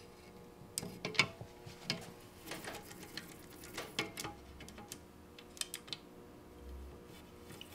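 Scattered small clicks and taps of the camera slider's bearing wheel modules being handled and popped back onto the carriage.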